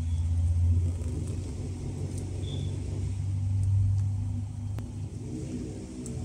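Low mechanical hum and rumble, steady but swelling a little near the start and again about four seconds in, with one faint click about five seconds in.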